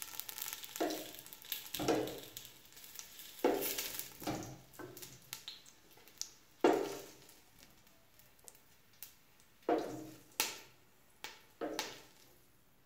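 A metal spoon knocking and scraping against a white enamel pot, about eight to ten separate clinks each ringing briefly, as fried onion and garlic are lifted out of the hot oil. A light sizzle of oil lies under the first half and fades.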